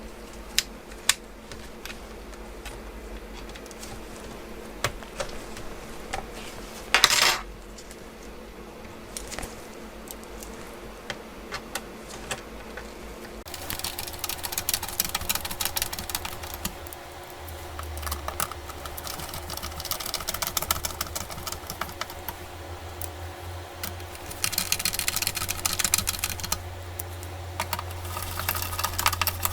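Small clicks and taps of laptop parts and screws being handled during reassembly, with one louder knock about seven seconds in. From about halfway a steady low hum joins, with quicker runs of clicking.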